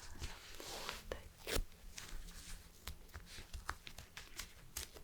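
An adhesive plaster peeled from its backing and stuck on, with crinkling and tearing noises and scattered small clicks, one sharper click about a second and a half in.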